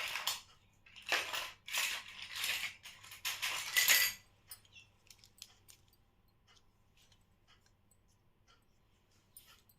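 Miniature plastic toy kitchen pieces being handled: a few loud rustling, scraping sounds in the first four seconds, then light scattered clicks and taps of small plastic parts.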